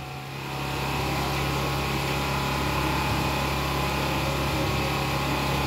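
A steady droning hum like a running engine, made of several steady tones, growing a little louder in the first second and then holding level.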